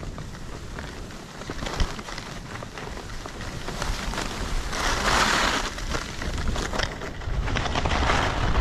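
Skis hissing and scraping over chopped-up snow through downhill turns, swelling louder twice, around the middle and near the end. A low rumble of wind on the microphone builds near the end.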